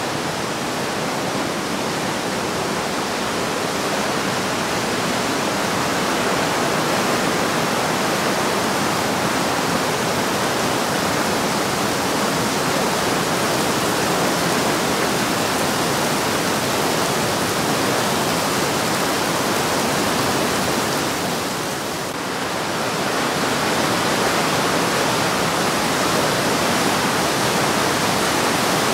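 The Breitach river's whitewater rushing through a narrow rock gorge: a steady, loud rush of water that dips briefly about three quarters of the way through.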